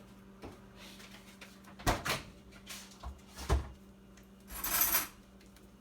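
Kitchen handling sounds: a few sharp knocks and a short rustle, over a steady low hum.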